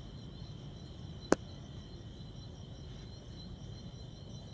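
Insects chirring steadily over a low background rumble, with a single sharp knock about a second and a half in.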